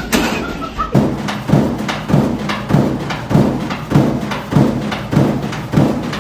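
Washing machine thumping in a steady rhythm, a heavy thud about every 0.6 seconds, the beat of a drum banging as it turns.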